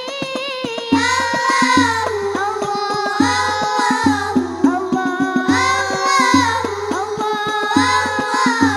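Children's Al Banjari group singing sholawat into microphones with a winding, ornamented melody, over hand-struck rebana frame drums playing an interlocking rhythm with deep bass strokes, amplified through loudspeakers.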